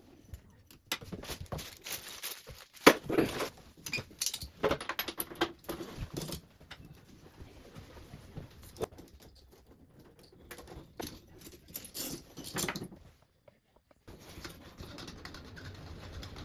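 Irregular light knocks, clicks and rattles of tools and fittings being handled while a tap is fitted to a sink unit, busiest in the first half and breaking off suddenly near the end.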